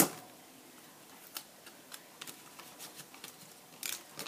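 Clear tape torn off a desk tape dispenser with one sharp snap, then faint ticks and paper rustles as the tape is pressed down onto folded lined paper, with a short papery rasp about four seconds in.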